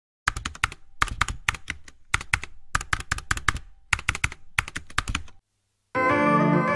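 Keyboard typing sound effect: rapid keystroke clicks in about six short bursts with brief pauses between them. It stops about five and a half seconds in, and music starts near the end.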